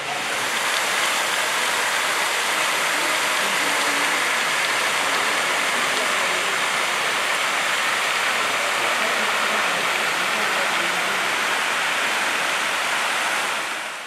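Thin waterfall pouring down onto rock: a steady hiss and splash of falling water that fades out near the end.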